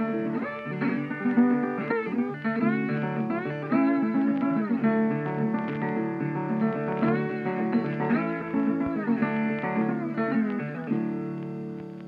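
Background music: guitar playing with bending, sliding notes, which fades out near the end.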